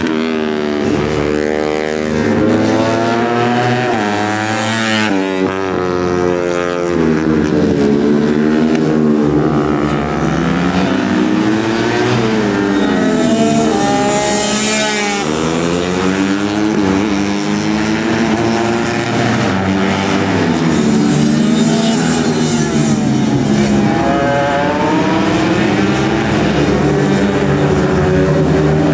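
Two-stroke 125 cc underbone race motorcycles lapping a circuit. Their high-revving engines rise and fall in pitch through the gears and corners, loudest as one passes close about halfway through.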